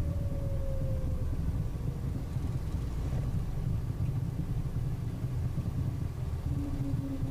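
Steady low rumble inside the cockpit of a Cessna Citation jet rolling out on the runway after touchdown, its speed brakes out. A faint whine falls slowly in pitch over the first couple of seconds, and a brief steady tone sounds near the end.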